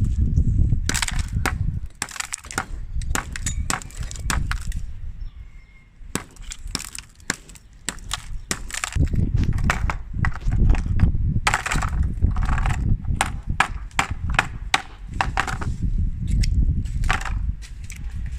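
Ice cubes clattering and crunching: quick runs of sharp clicks and knocks over a low rumble, with a short lull about five seconds in.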